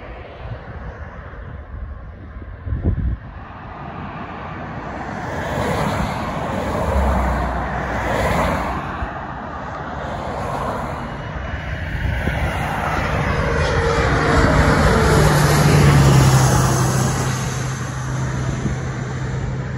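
Wind on the microphone with a short low thump about three seconds in, then a CRJ-700 regional jet's two rear-mounted turbofans approaching and passing low overhead on final approach: the jet noise builds to a peak about sixteen seconds in, with a steady low hum and falling sweeping tones, and eases off as it passes.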